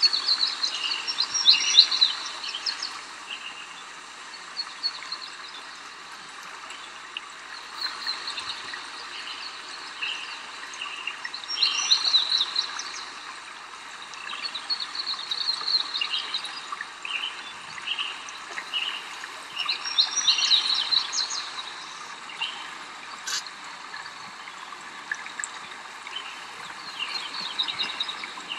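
Songbirds singing: a bright trilled phrase repeated every four seconds or so, with scattered short chirps between, over a steady faint hiss.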